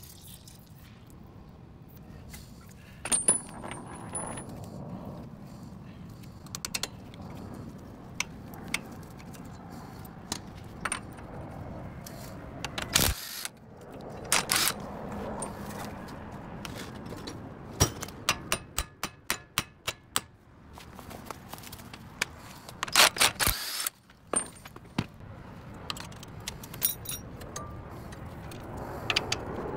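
Hand tools clinking and clanking against metal car parts during CV axle work, in scattered sharp knocks with a run of quick even clicks, about four a second, for a couple of seconds midway.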